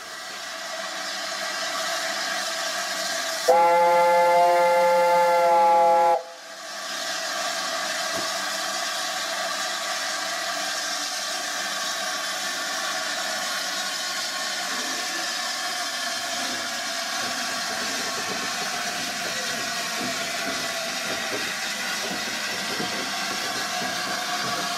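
LNER A4 steam locomotive 'Bittern' giving one loud blast of about two and a half seconds on its chime whistle, a chord of several notes, about three and a half seconds in. Before and after the blast there is a steady hiss of escaping steam from the standing engine.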